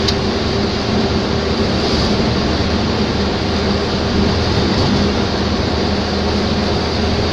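Steady engine hum and tyre-on-road noise of a vehicle cruising along a highway, heard from on board.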